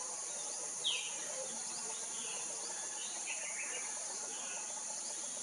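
Steady high-pitched drone of insects with short bird chirps over it: one falling chirp about a second in and a few more chirps two to four seconds in.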